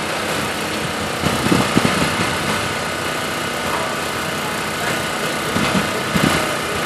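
Small engine running steadily, with a couple of short louder bursts about one and a half seconds and six seconds in.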